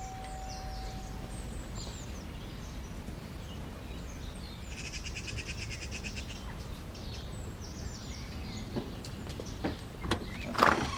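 Small birds chirping over a steady low background rumble, with one rapid trill about halfway through and a few sharp knocks near the end.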